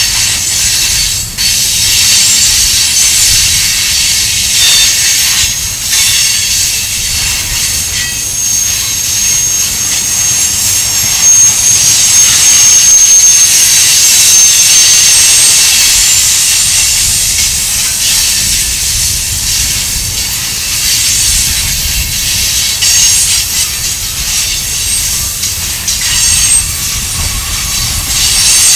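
Railroad tank cars of a freight train rolling past at steady speed: steel wheels rumbling low on the rails under a loud high hiss. A thin wheel squeal rises in the middle, and there are a few sharp clacks over the rail joints in the first several seconds.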